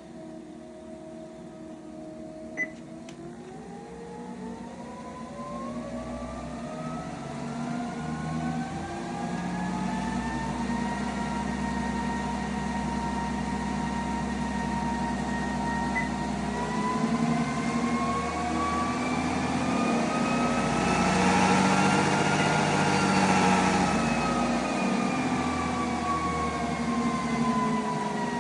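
NordicTrack T6.5S treadmill's drive motor and belt running, its whine rising in pitch as the speed is stepped up, holding, climbing again to a peak about three quarters of the way through, then falling as it slows. The treadmill is running properly on a newly fitted controller board. A single click comes about two and a half seconds in.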